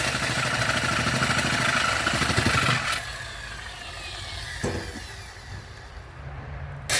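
A motor runs with a rapid, rattling buzz for about three seconds and then stops abruptly, leaving a quieter background hum. A click comes near the middle and a sharp click near the end.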